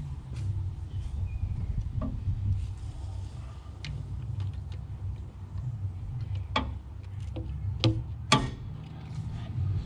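Scattered sharp metal clicks and clinks of hand tools working on a spark plug, the loudest about eight seconds in, over a steady low hum.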